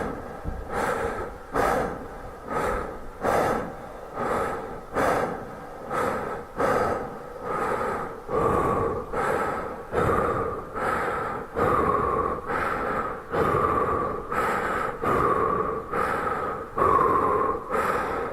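A person breathing hard: loud, rhythmic gasping breaths, roughly three every two seconds, over a faint steady hum.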